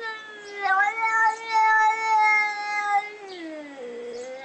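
A cat yowling in long, drawn-out meows. A call trails off at the start, then a second one begins under a second in, holds its pitch, and slides down near the end.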